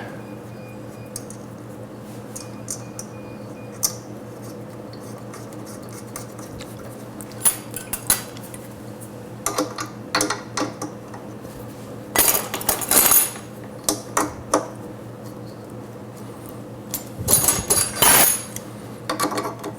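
Small metal tools and parts clinking and rattling in short, irregular bursts as a part is fitted and tightened by hand, over a steady low hum.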